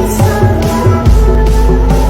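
Loud music with a heavy, sustained bass and a steady beat; the deepest bass briefly drops out and comes back in about a second in.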